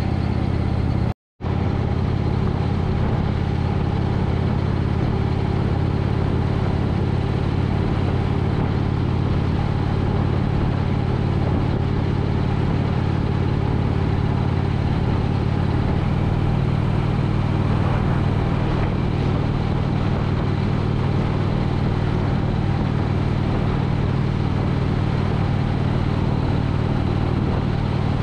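2017 Indian Chief Vintage's big air-cooled V-twin running steadily at cruising speed, with wind and road noise. The sound cuts out completely for a moment about a second in, and the engine note steps up slightly about halfway through.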